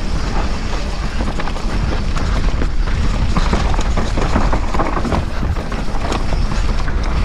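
Downhill mountain bike descending at speed over a dry, rocky dirt trail: tyres crunching on loose stones and the bike rattling and knocking over rocks, with wind rumbling on the action camera's microphone.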